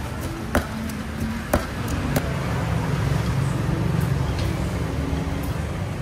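Wooden pestle striking a clay mortar of green papaya salad, a few sharp knocks in the first two seconds, over a steady low rumble of road traffic that swells toward the middle.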